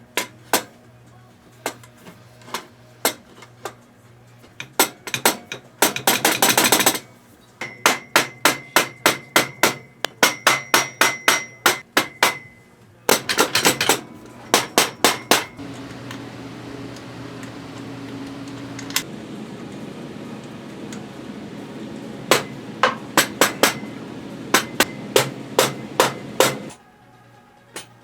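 Hand tools on metal exhaust parts: runs of sharp metallic taps and clicks, about four a second, with two short bursts of rapid clicking around six and thirteen seconds in.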